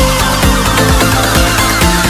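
Background electronic dance music with a steady, driving beat and warbling synth lines.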